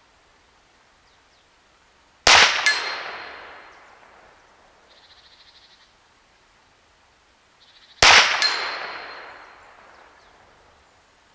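Two shots from a semi-automatic .22 PCP air pistol (Huben K1 action), about six seconds apart. Each is followed about a third of a second later by the clang of the pellet striking a metal target, which rings and fades.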